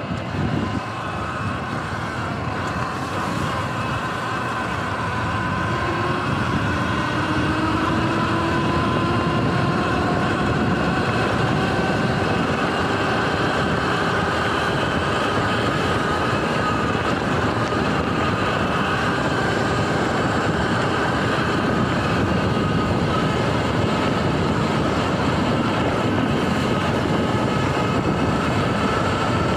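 Sur-Ron electric dirt bike's drive whining as it rides over grass, the whine rising in pitch over the first several seconds as the bike speeds up and then holding steady. It sounds over a constant rush of wind and tyre noise.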